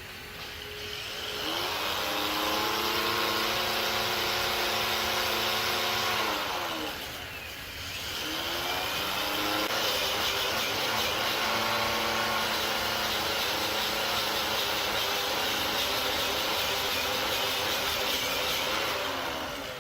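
An electric power tool motor spins up, runs steadily for about five seconds and winds down. It then spins up again for a longer run of about ten seconds before winding down near the end, with a hissing, grinding-like noise over the motor's tone while it runs.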